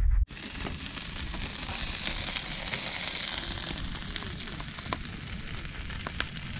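A brief low wind rumble on the microphone cuts off about a quarter second in. Then comes a steady sizzling hiss with scattered sharp pops, from sausages cooking on a portable gas stove and a wood fire crackling in a steel fire pit.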